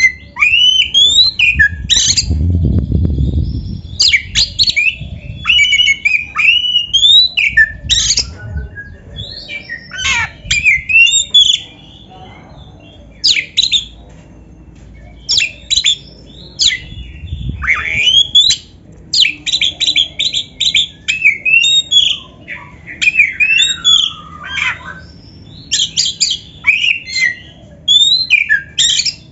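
Oriental magpie-robin (kacer) singing: a varied run of short whistled phrases with quick rising and falling glides, broken by brief pauses. A low rumble sounds briefly under the song twice, about two seconds in and again around seventeen seconds.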